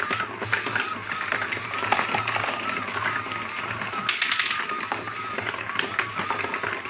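Small 4.5-volt DC motor driving a cardboard escalator, whining with a slightly wavering pitch, while glass marbles click and clatter on the cardboard steps and track, with a denser run of clicks about four seconds in.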